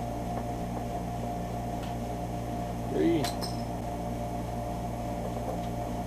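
Hand screwdriver backing screws out of the plastic underside of an Epson MX-80 dot matrix printer, with a single light metallic click about three seconds in. A steady low electrical hum runs underneath.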